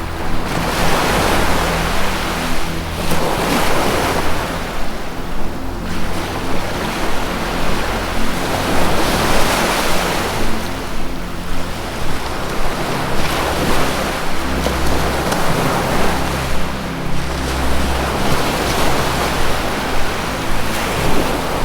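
Ocean waves washing in and out, swelling every couple of seconds, over low, sustained ambient music notes that shift slowly in pitch.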